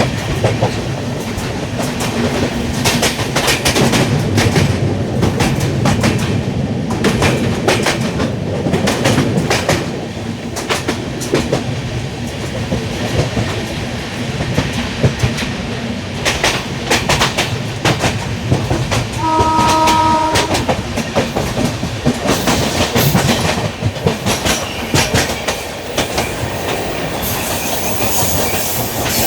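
LHB passenger coaches running at speed, heard from on board: a steady rumble with the wheels clicking over rail joints. About two-thirds of the way through, the hauling WAP7 electric locomotive's horn sounds once for about a second.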